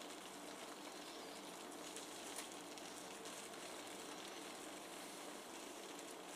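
Cream of mushroom gravy simmering in a pan, a faint steady sizzle with a few soft ticks.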